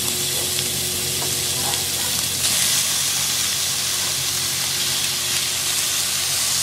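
Thin slices of raw beef sizzling in hot oil in a nonstick wok. The sizzle grows louder about two and a half seconds in, and near the end tongs push the meat around the pan.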